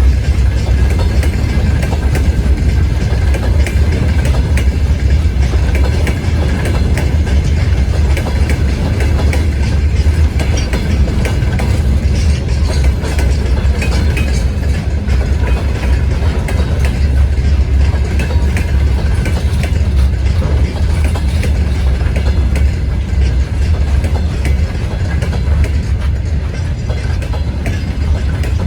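A freight train's wagons rolling past slowly, with a steady low rumble and dense clicking of wheels over the rails.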